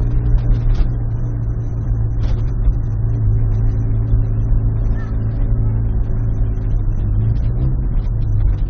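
Car's loud exhaust droning at a steady engine speed while driving, heard from inside the cabin.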